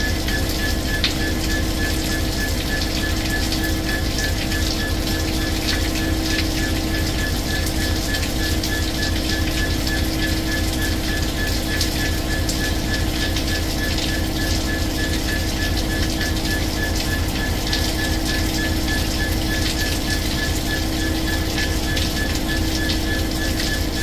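Heavy rain falling steadily, with a low rumble, a steady hum and a quick, even pulsing high tone running under it.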